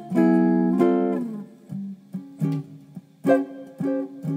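Solo guitar music: a chord rung out at the start, then single plucked notes, and another chord about three seconds in.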